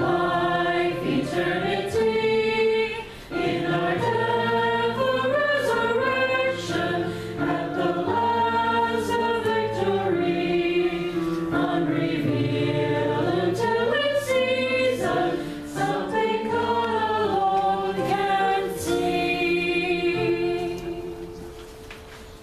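Congregation singing a hymn in unison with piano accompaniment; the hymn ends near the end on a held chord that fades away.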